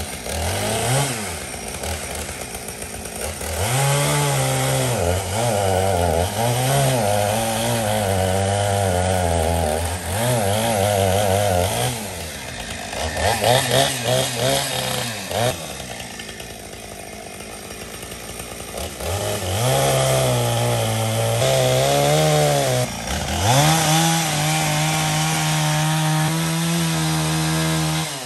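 Two-stroke chainsaw revving up and down repeatedly while cutting brush and small trees, easing back to idle for a few seconds about halfway through.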